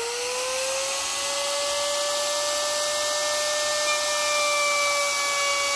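Compact wood palm router's motor whining as it finishes spinning up, its pitch rising over about the first second, then running steadily at full speed.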